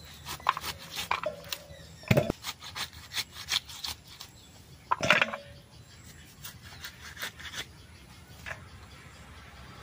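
Peeled pomelo being sliced on a boti, the blade scraping and cutting through the fibrous pith and flesh in a string of irregular strokes. The two loudest cuts come about two and five seconds in, and the strokes die away near the end.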